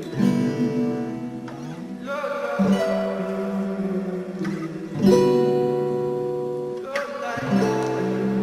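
Instrumental passage of a pop song: strummed guitar chords, each struck and left ringing, changing about every two and a half seconds.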